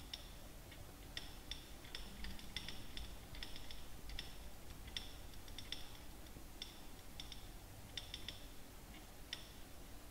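Cloth duster rubbing across a whiteboard, giving faint, irregular short squeaks and ticks, a few a second.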